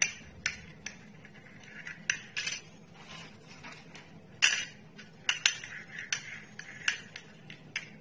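Metal spoon stirring a thick honey-and-jaggery mixture in a small glass bowl, clinking irregularly against the glass, with the loudest clink about halfway through.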